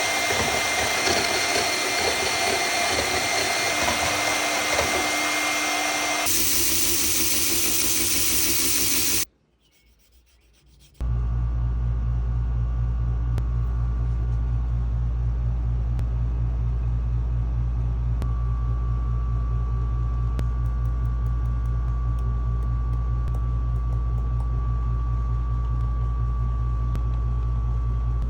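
Woodworking power tools cutting and sanding a piece of oak: a harsh noisy cut for about six seconds, a different tool for about three more, a short break, then a machine running steadily with a low hum and a faint steady whine.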